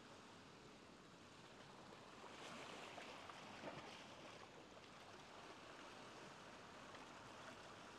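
Faint ocean waves washing ashore, a steady hiss of surf that swells a little about two to three seconds in.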